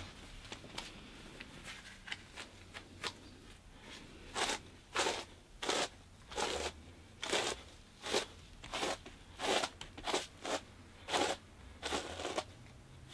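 A hairbrush drawn again and again through a long wig, about a dozen brisk strokes roughly two-thirds of a second apart, starting about four seconds in after a few faint rustles and clicks.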